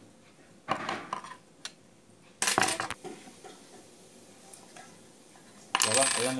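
Small steel parts of a flatlock sewing machine's looper assembly clinking and scraping against a screwdriver as they are handled, in three short clatters about a second in, midway, and near the end.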